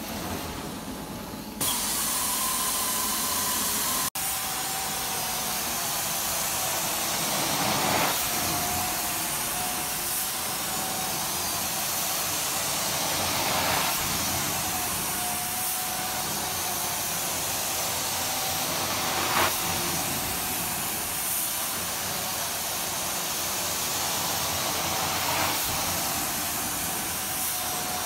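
Carpet extraction wand spraying and sucking water out of carpet: a steady hiss with a faint steady whine beneath it, swelling slightly about every five to six seconds. Near the start the sound drops away for about a second and a half, and about four seconds in it breaks off and resumes.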